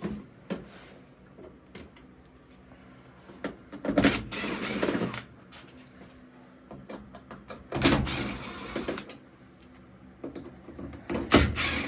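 Power drill running in three short bursts, a few seconds apart, backing out the Phillips screws that hold the back panel of a top-load washer.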